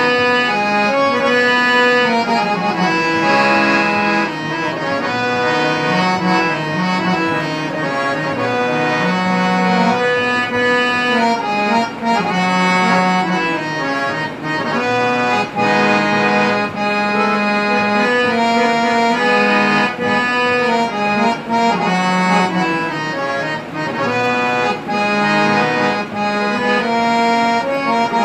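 Three-reed portable harmonium with bass, male and female banks of Palitana reeds, played solo: a melody over held lower notes, the reeds sounding without a break as the bellows are pumped.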